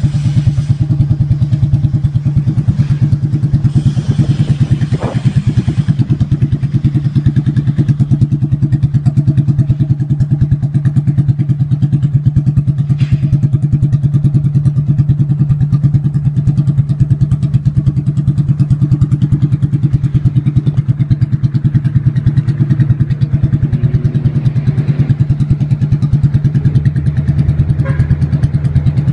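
A 200cc Lifan single-cylinder four-stroke motorcycle engine idling steadily at a constant speed, with no revving.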